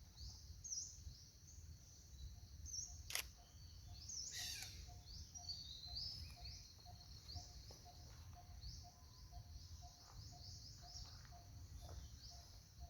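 Faint outdoor night chorus: high chirps repeating throughout, with an even run of short low notes about two a second from around four seconds in. A single sharp camera shutter click comes about three seconds in.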